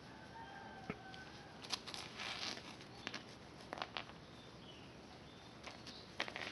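A small stone clicking and scraping on a hard floor as a cat bats it about, in a scattered string of short knocks and scrapes.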